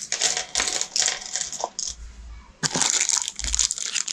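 Plastic bags of plastic game chips rustling and crinkling as they are handled, in two spells with a short pause a little under two seconds in.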